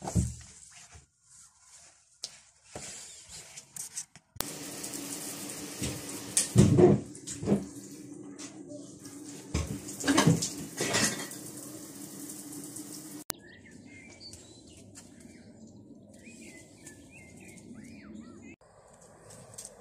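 Water running in a small bathroom, a steady rush with a low hum and several loud bumps, starting suddenly about four seconds in. It cuts off abruptly about thirteen seconds in, giving way to birds chirping over steady outdoor noise.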